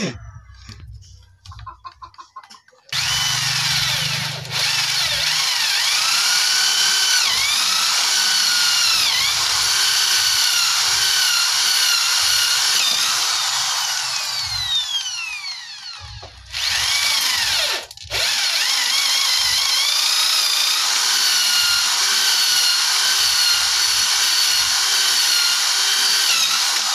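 Corded electric drill boring holes into a wooden plank. The motor starts about three seconds in, its whine dipping and recovering in pitch as the bit bites into the wood, winds down around fifteen seconds, then runs again with a brief stop near eighteen seconds.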